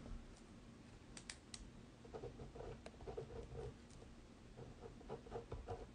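Near silence: quiet room tone with a few faint, sharp clicks about a second in and faint soft low sounds later on.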